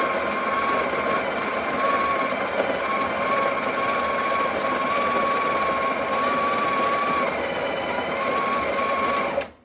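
Breville Barista Express's built-in conical burr grinder running, grinding coffee beans into the portafilter: a steady whining grind that cuts off suddenly near the end.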